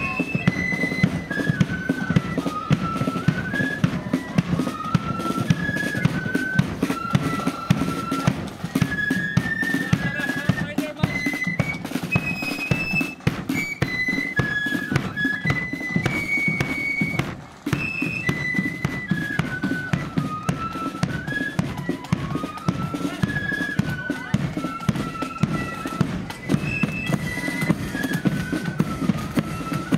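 Blood-and-thunder marching flute band playing a tune: flutes carrying a single melody line that steps up and down, over continuous snare drumming, bass drum beats and cymbal crashes.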